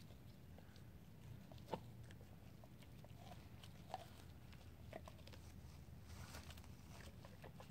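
Doberman faintly gnawing and biting at a raw deer spine, teeth clicking on meat and bone, with two sharper cracks about two and four seconds in.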